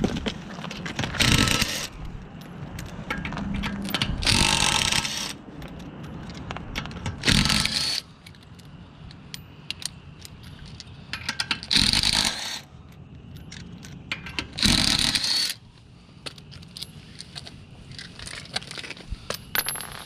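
Metal tools and parts clinking and scraping in about five short bursts, each under a second long, with quieter handling noise between them.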